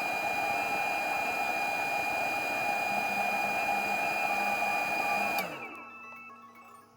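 Small 5-volt battery-powered fan running steadily with a high whine, then shutting off about five and a half seconds in and winding down: its thermostat has cut the power once the box cooled to the set temperature.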